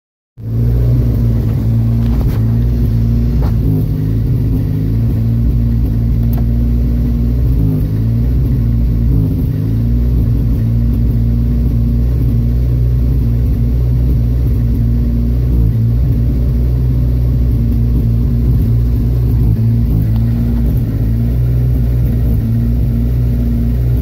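1976 Datsun B210's 1.4-litre four-cylinder engine idling roughly, heard from inside the cabin. A steady low hum starts about half a second in, from an idle rough enough that the engine dies at every stop.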